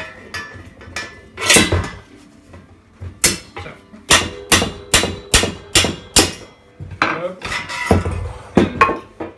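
Hammer blows on a headset cup-removal drift, knocking the remaining headset cup out of a bicycle frame's head tube. A quick run of about seven sharp knocks, roughly two a second, in the middle, with a few heavier, spaced-out knocks before and after.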